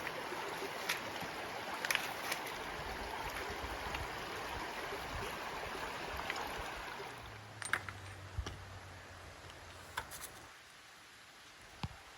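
Rushing water of a mountain creek, a steady noise that fades about seven seconds in and drops away near ten seconds. A few short, sharp clicks are scattered through it.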